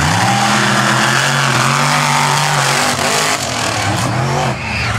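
Monster truck engines racing at full throttle. The pitch climbs sharply at the start and holds, then several quick revs rise and fall near the end as the throttle is lifted and reapplied.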